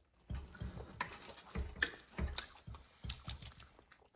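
Eating noodles close to the microphone: irregular mouth smacks and clicks, with several low thumps.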